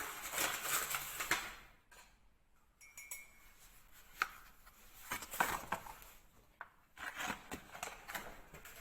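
A spoon scooping flour, scraping and clinking against dishware in three bursts of scrapes with sharp clicks.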